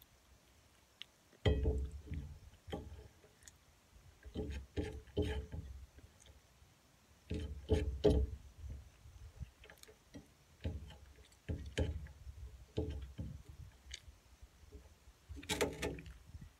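Irregular thumps and clinks of a plate, utensil and mug against a glass-topped table while someone eats, about ten separate knocks spread unevenly with short quiet gaps between.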